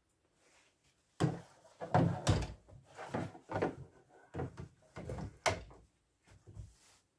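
Denim fabric being handled and smoothed over an embroidery hoop by hand: irregular rustling with dull knocks against the hoop and table, starting about a second in.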